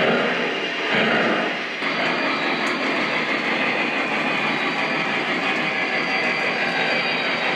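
Lionel Vision Line Big Boy O gauge model locomotive running on the layout: its multi-speaker onboard sound and wheels on the rails give a steady rushing noise, with a few louder surges in the first two seconds.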